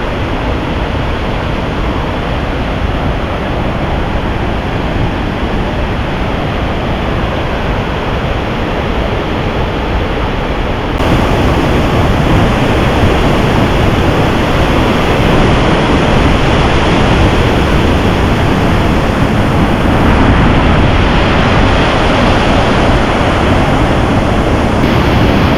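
Pistyll Rhaeadr waterfall in full spate after heavy rain: a loud, steady rush of falling water, so loud a voice would barely carry over it. It gets louder about eleven seconds in.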